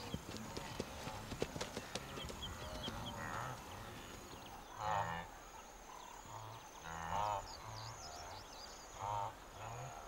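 Wildebeest calling from the herd: short nasal grunting calls, the loudest about five, seven and nine seconds in.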